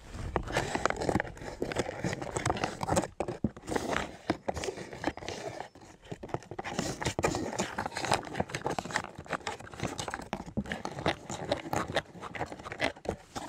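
Long spoon stirring a rehydrating freeze-dried meal inside its pouch: the packet crinkles steadily, with irregular scrapes and clicks as the spoon works through the food.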